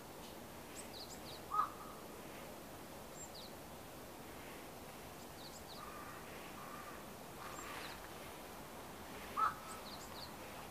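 Birds calling outdoors: two short loud calls, one about a second and a half in and another near the end, over faint, scattered high chirps of small birds and a steady background hiss.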